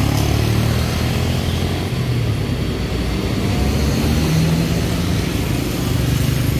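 Road traffic: a Mercedes-Benz coach's diesel engine running with a steady low drone as it approaches, while motorcycles pass close by.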